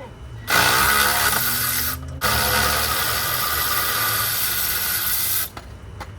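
Cordless electric ratchet run twice on a wheel-hub bolt, in two bursts with a short pause between them. The first burst is short and starts with a rising whine as the motor spins up, and the second runs for about three seconds before stopping.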